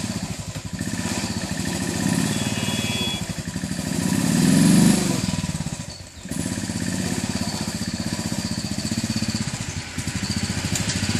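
Motorcycle engine labouring up a steep, rutted dirt climb at low speed. The revs build to a peak about five seconds in, drop sharply for a moment about a second later, then pick up and run steadily again.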